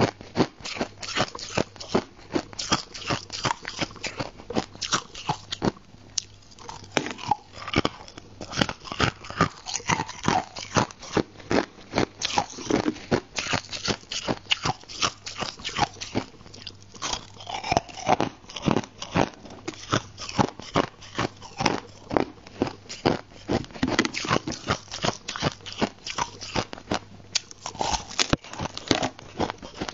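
A person biting and chewing chunks of white crushed ice close to a clip-on microphone: rapid, crisp crunches several times a second, with a brief pause about six seconds in.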